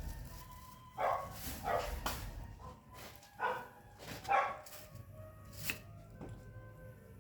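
A dog barking, about six separate barks spread over several seconds, with a low rumble underneath during the first couple of seconds.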